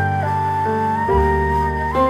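Background music: a slow melody over held chords, the melody sliding into a new note about once a second.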